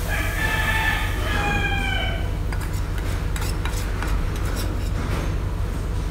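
A rooster crowing once, a drawn-out call of about two seconds that dips slightly in pitch toward its end, over a steady low hum. After it come light clicks as stir-fried filling is tipped from the pan into a bowl.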